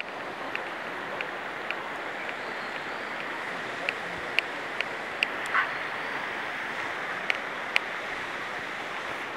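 Steady rushing forest ambience, with about a dozen short sharp high ticks at irregular intervals and a brief louder sound a little past the middle.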